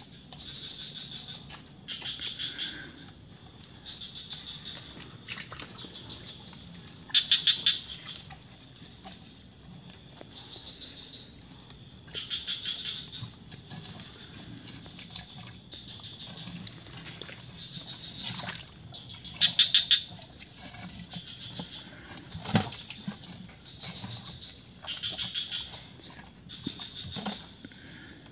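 Bali cattle drinking salt water from plastic paint buckets, with faint low slurping. Over a steady high insect drone come short bursts of rapid chirping about every five seconds, the loudest two about seven and twenty seconds in.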